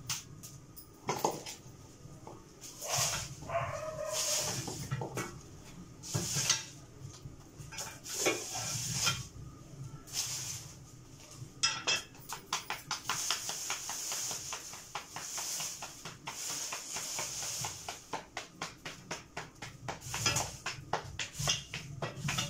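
A utensil knocks fast and evenly, about five strokes a second, in a pot of saag cooking over a straw fire, starting about halfway through with a hiss alongside. Earlier there are a few short, scattered dog barks.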